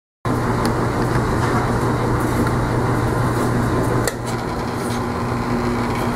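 Tormek wet grinder switched on about four seconds in: a click, then its motor running with a steady low hum. The hum sits over a steady background hum.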